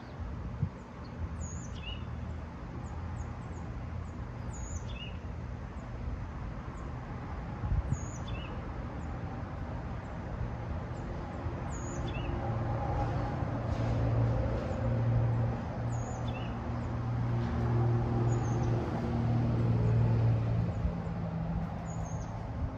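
Outdoor ambience: a bird repeats short, high, downward chirps every second or two over a steady low hum, while a low engine drone, like a passing vehicle, swells up through the middle and fades near the end.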